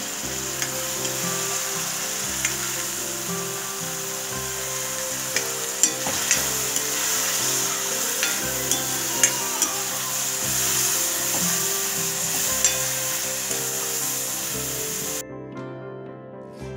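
Chopped colocasia stems, onion and chillies sizzling in hot oil in a cast-iron kadai, just wetted with salt water, while a steel ladle stirs them with scattered sharp scrapes and clicks against the pan. The sizzle cuts off suddenly about a second before the end, leaving soft background music.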